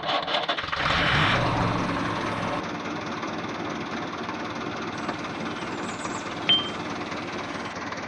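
A small motor starting about a second in and then running steadily, with one short sharp click about six and a half seconds in.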